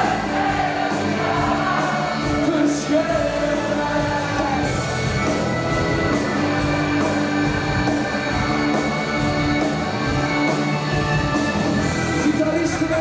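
A wind orchestra of saxophones, clarinets and flutes, with drums and electric guitar, playing a rock song live while a man sings over it, with a steady drum beat.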